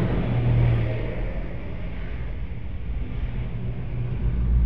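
Steady low engine and road rumble heard from inside a moving vehicle, with traffic passing close by.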